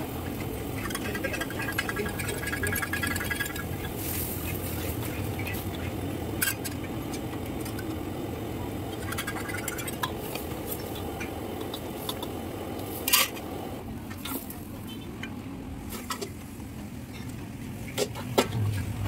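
Food frying in a wok over a gas burner, with a steady sizzle and the metal ladle and spatula scraping and clanking against the wok and pots. A few sharp metal clanks stand out, the loudest about two-thirds of the way through.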